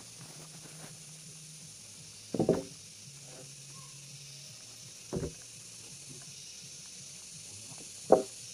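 Sawn wooden boards knocking against each other and the log as they are handled: three sharp wooden thuds, about two and a half, five and eight seconds in, the last the loudest, over a steady high hiss.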